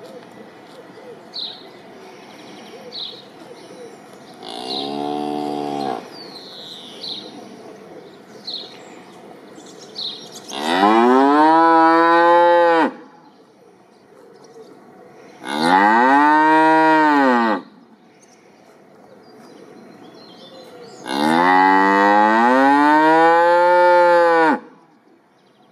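Domestic cow mooing: one shorter, quieter moo, then three long, loud moos, each rising and then falling in pitch.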